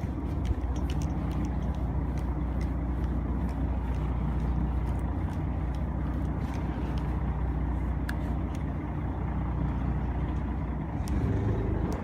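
Fishing boat's engine running steadily with a low rumble, with a few faint scattered clicks.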